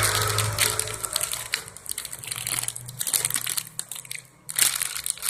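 Irregular crinkling and clicking of plastic being handled close to the microphone, with a brief lull about four seconds in.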